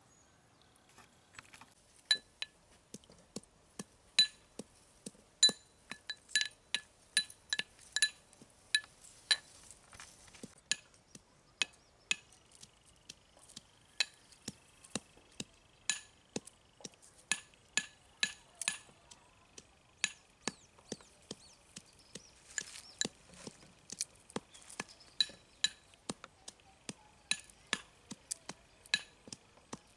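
Irregular sharp metallic clinks of stainless steel kitchenware knocking together during food preparation, each with a short bright ring, one or two a second.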